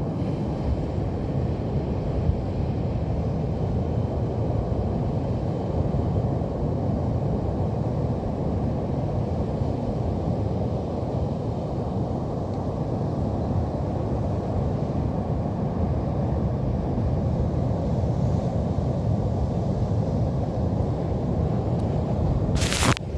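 Steady low rumble of Pacific Ocean surf breaking on the beach, mixed with wind on the microphone. Near the end comes one brief sharp burst of noise.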